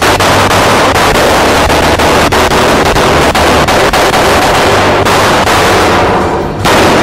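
A volley of handgun fire: many shots in rapid, overlapping succession that merge into a continuous rattle, stopping abruptly near the end.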